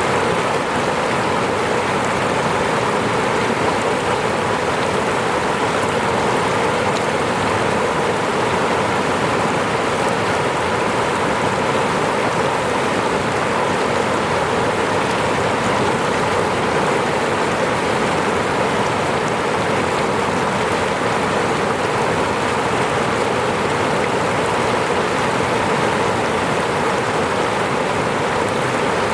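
Falling water, such as a small waterfall, rushing in a steady, unbroken stream.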